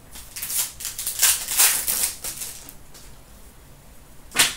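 Foil trading-card pack wrapper crinkling and tearing while the cards inside are pulled out and flicked through in quick rustling strokes for about two seconds, followed near the end by a single sharp tap of cards.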